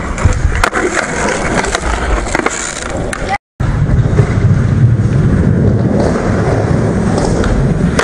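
Skateboard wheels rolling on concrete, with sharp clacks of the board in the first half. After a brief cut to silence, a heavier steady rumble of wheels rolling follows.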